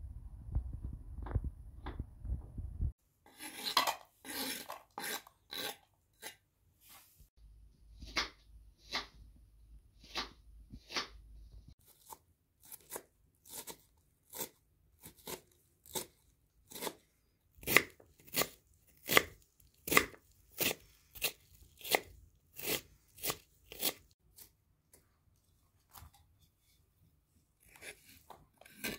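Opens with wind rumbling on the microphone. Then a knife chops an onion on a wooden cutting board in sharp, regular strokes, about one and a half a second. Near the end the chopped onion is scraped off the board into a steel pot.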